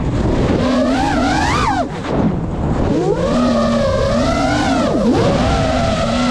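FPV quadcopter's brushless motors whining, the pitch swooping up and down with the throttle, dropping sharply about two seconds in and again near five seconds.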